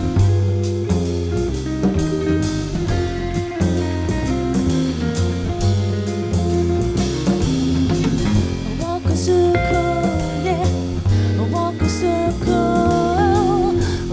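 Background music: an instrumental stretch of a song, with bass, drums and guitar keeping a steady beat, and a wavering lead melody coming in during the second half.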